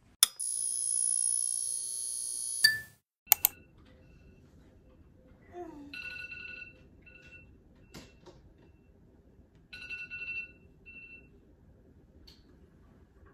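A loud high-pitched hissing tone starts about half a second in and cuts off abruptly after about two seconds. Later a mobile phone tone chimes in two short groups of notes about four seconds apart.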